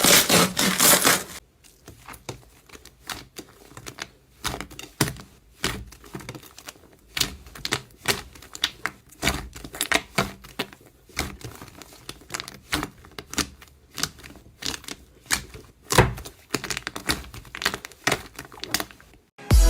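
Slime being squeezed and worked by hand, giving sticky clicks and pops: a dense crackling burst for about the first second and a half, then scattered, irregular clicks.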